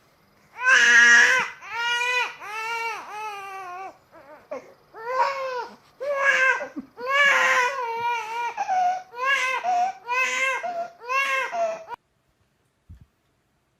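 Human baby crying in a run of wails about a second long each, which cuts off suddenly about twelve seconds in.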